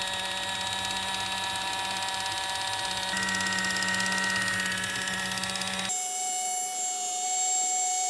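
A battery-powered Kitchen Mama electric can opener running steadily, a motor whine as it travels around the rim of a can, cutting the lid off. Its tone shifts slightly about three seconds in, and near six seconds the low hum drops away, leaving a higher whine.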